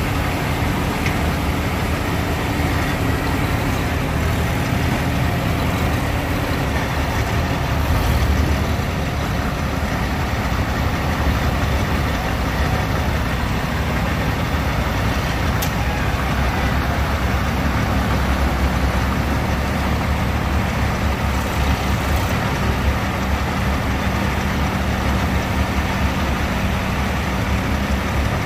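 Farm tractor engine idling close by, a steady low running sound, briefly louder about eight seconds in.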